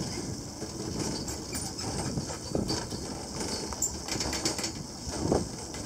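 Gelmerbahn funicular car running down its steep track: a steady low rumble and rattle, with a couple of short creaking squeaks, one about two and a half seconds in and another near the end.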